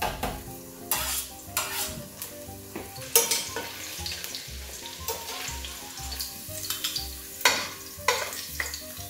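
Garlic cloves sizzling in hot olive oil in a stainless steel pot, with metal tongs scraping and clinking several times against the pot as the browned cloves are lifted out.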